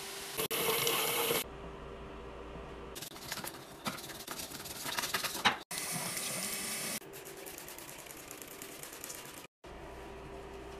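Water sounds at a bathroom sink in short cuts: liquid poured from a bottle into the drain rushes for about a second, a stretch of irregular crackling clicks follows, then about a second and a half of tap water running into the basin. A faint steady hum sits underneath.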